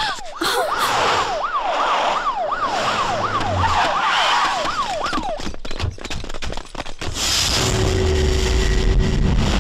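Vehicle siren wailing in a fast yelp, rising and falling about twice a second; it stops about five seconds in. A few sharp hits follow, then a low steady rumble near the end.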